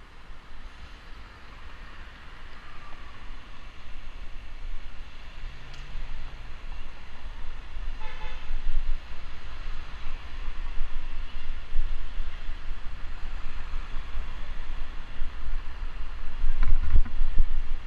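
Wind rushing over the microphone of a bike-mounted camera and road rumble while cycling through city traffic, growing louder as the bike picks up speed. A short vehicle horn toot sounds about eight seconds in, and a few loud knocks come near the end.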